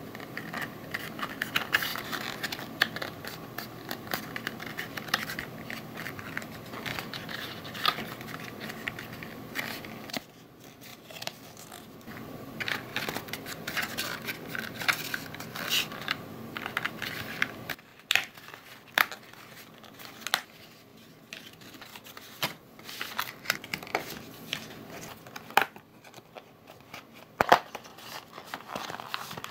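Printed thin cardboard of a papercraft kit being folded, creased and its tabs pressed together by hand. It makes a run of crinkling and rubbing with small sharp clicks and snaps, easing off twice into quieter spells, with the loudest snap near the end.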